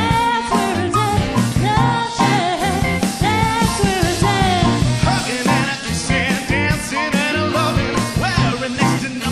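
Dance band playing an upbeat rock-and-roll number with a steady beat and a melodic lead line over it.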